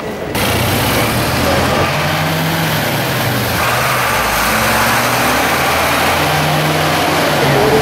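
Engine of an olive-green military van running as it drives past close by, its pitch rising and falling.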